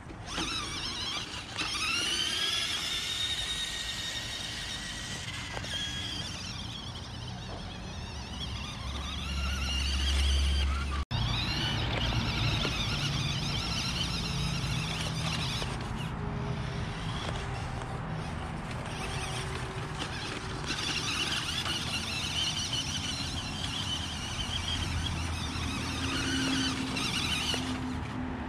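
The electric drive motor and gears of a stock Radio Shack Enforcer RC truck whining as it runs in low gear. The whine rises in pitch with each burst of throttle, clearly near the start and again about eleven seconds in.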